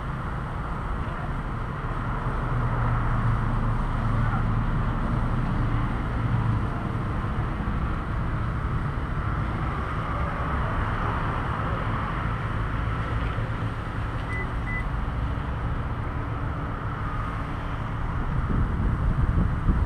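An SUV driving slowly through a parking lot, its engine and tyres making a steady low rumble over the hum of traffic, with two short faint beeps about two-thirds of the way through.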